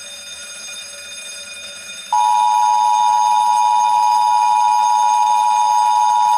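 Fire alarm: an electric fire bell ringing continuously, then about two seconds in a loud steady electronic alert tone comes in suddenly and holds over it.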